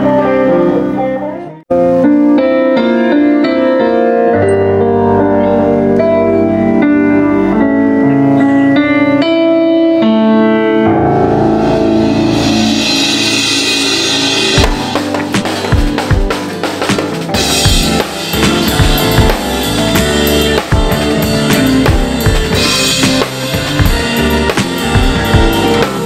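Music: a melody of held notes, then a cymbal wash, and from about halfway a live drum kit playing with bass drum and snare hits during a band soundcheck.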